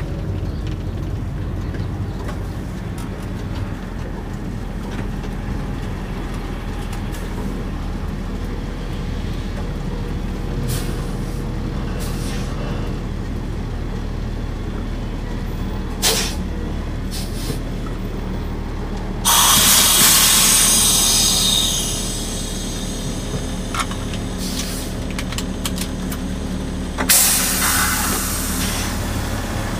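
Diesel engine of a Marcopolo GV 1150 coach idling steadily, heard from the driver's cab. About two-thirds of the way through comes a loud air-brake hiss lasting a couple of seconds and fading off, and a shorter hiss follows near the end.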